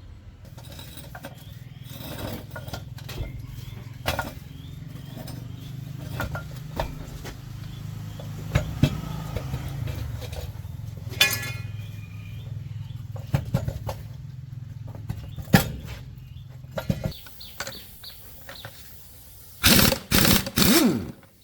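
A motor running steadily, with scattered metal clanks and knocks from work on it, then three short loud noisy bursts near the end.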